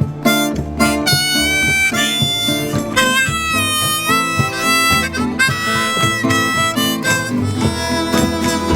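Harmonica solo with bending, sliding notes over strummed acoustic guitar, played live as an instrumental break between verses of a blues-tinged Americana song.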